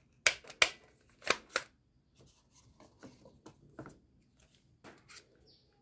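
Plastic toy dart shotgun being handled and worked, its parts clacking: four sharp clacks in the first two seconds, then lighter clicks and rustling.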